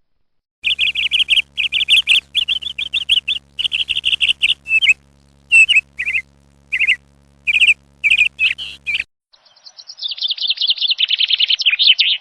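Small birds chirping in rapid runs of short calls over a steady low hum that cuts off about nine seconds in. Then comes a faster run of chirps that fall in pitch.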